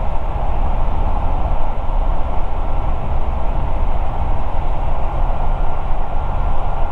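Steady drone of an Ikarus C42 microlight's Rotax 912 flat-four engine and propeller, with airflow noise, heard inside the cabin in cruise flight.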